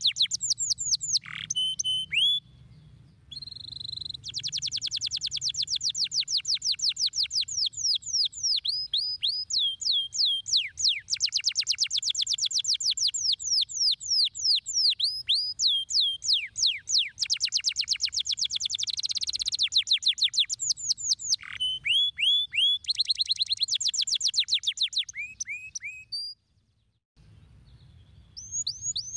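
Canary singing: long trills of fast, repeated falling notes that switch to a new phrase every few seconds, with short breaks about three seconds in and near the end.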